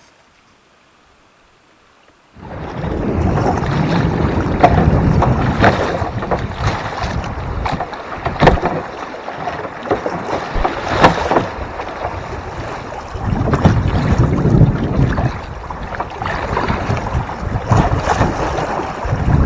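After two faint seconds, loud rushing and splashing of water starts suddenly around a kayak as it runs a shallow, sandy riffle of a muddy river. Wind buffets the microphone of the action camera mounted low on the bow, and short sharp splashes and knocks recur throughout.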